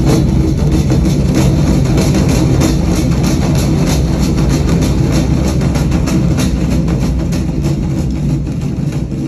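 Music with a steady beat and heavy bass playing through Klipsch The Nines powered bookshelf speakers.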